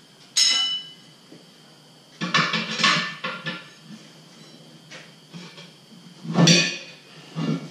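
Steel tire spoons clanking and scraping against a wheel rim as a tire bead is levered on by hand: a sharp ringing clank, a cluster of clanks and scrapes, then the loudest clank near the end.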